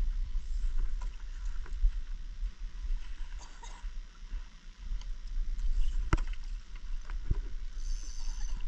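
Wind rumbling on the microphone over the flow of the river at the bank, with a couple of sharp knocks about six and seven seconds in.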